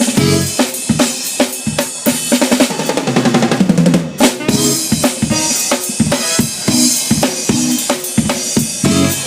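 Live band playing at a sound check, with the drum kit out in front: a steady run of kick and snare hits and cymbals over pitched instruments.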